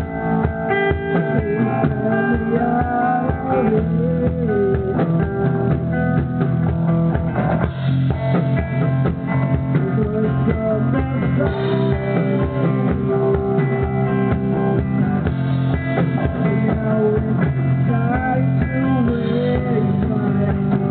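A live rock band playing a song: overdriven Gibson Les Paul Historic '57 electric guitar over a Music Man StingRay bass and a drum kit, loud and continuous.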